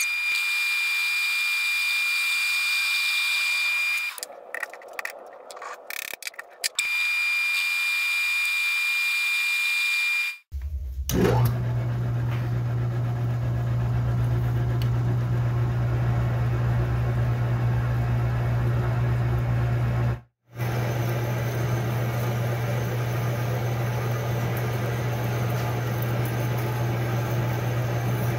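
Atlas metal lathe running under power while a round workpiece is faced and then drilled. For the first ten seconds there is a steady high whine, broken up briefly about four seconds in. After an abrupt change it gives way to a steady lower running sound with a deep drone as the drill feeds into the spinning part.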